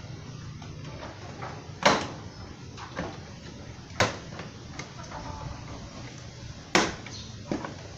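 Sharp knocks and clicks of hard plastic scooter fairing panels being handled and pressed into place: three louder knocks about two, four and nearly seven seconds in, with lighter taps between.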